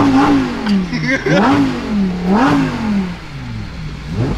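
Lamborghini Huracán's naturally aspirated V10 revving, heard from inside the cabin: the engine note climbs and falls back three times, and starts climbing again right at the end.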